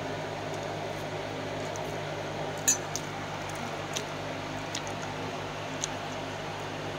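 Gas stove burner running steadily under instant noodles bubbling at the boil in a coconut shell, with a few small sharp pops and crackles, the loudest about two and a half seconds in.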